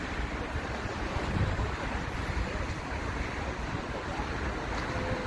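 Jet aircraft noise at an airport: a steady, even roar, with wind buffeting the microphone in the low end.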